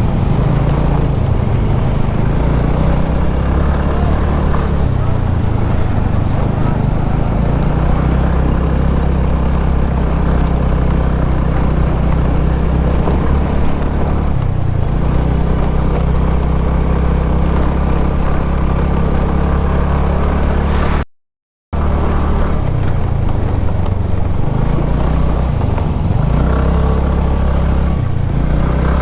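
A two-wheeler's engine running steadily on the ride, its note shifting now and then with the throttle over constant road and wind noise. The sound cuts out completely for under a second about 21 seconds in.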